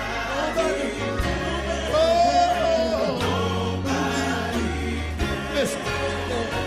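Live gospel music: a male lead singer's held, sliding sung notes with choir and band behind him, bass and drums keeping a steady beat.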